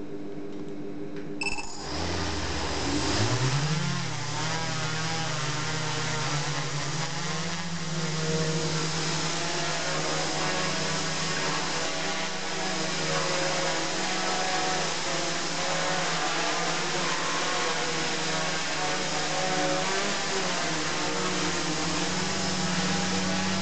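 Small 500 g quadcopter's electric motors and propellers spinning up about a second and a half in, the pitch rising, then a steady hovering buzz whose pitch wavers as it holds position.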